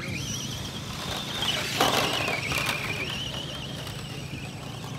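Radio-controlled scale truck's electric motor and drivetrain whining as it drives, the pitch rising and falling with the throttle, with a sharp knock about two seconds in.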